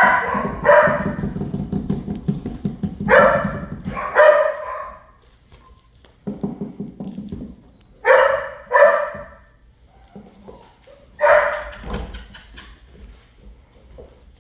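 Dog barking in play: about seven sharp barks, mostly in pairs with pauses between, with a low rumble under the first few barks.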